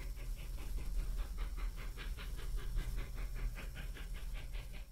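Model train of ore cars and hoppers rolling along the layout's track: an even, fast clicking of wheels over rail joints, about six clicks a second, over a steady low hum.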